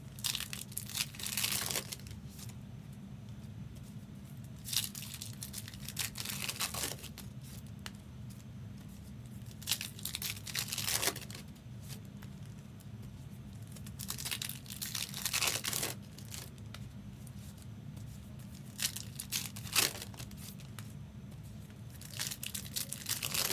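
Trading card pack wrappers being torn open and crinkled, one after another in short rustling bursts every few seconds, over a steady low hum.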